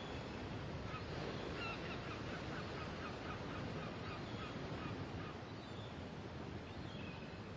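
Birds calling at a shoreline: a run of short, repeated honking calls, about three a second from about a second in for some three seconds, with a few more calls near the end, over a steady outdoor hiss.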